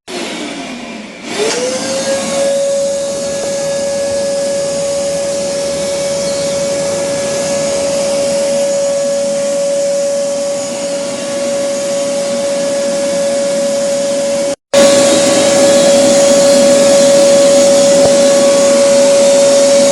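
Vacuum cleaner motor running with a steady, high whine. Just after the start it winds down, then is switched on again and whines up to full speed about a second and a half in. Near the end it runs louder after a brief break.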